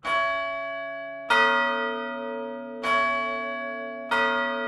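The Shandon church bells of St. Anne's, Cork, chimed one at a time from the ringing room by pulling their numbered ropes: four strokes, about a second and a half apart, each bell ringing on under the next and each stroke a different note.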